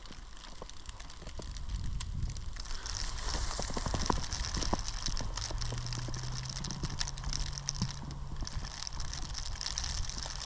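Wet falling snow pattering irregularly as many small ticks over a soft hiss. A low steady hum joins from about five to nine seconds in.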